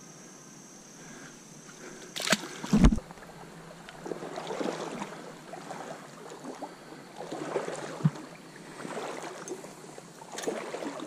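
Water sloshing and swishing in a trout stream in uneven swells every second or two. There are two sharp knocks a little over two seconds in, the second a heavy, low thump and the loudest sound.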